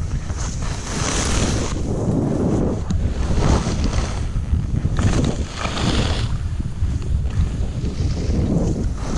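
Wind buffeting the camera microphone during a ski descent, a constant low rumble, with hissing swells of skis sliding on snow that come and go about once a second.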